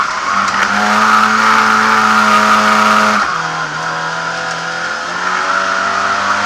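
Lada 2101 rally car's engine heard from inside the cabin, running hard at steady high revs. The revs drop suddenly about three seconds in and climb again a couple of seconds later.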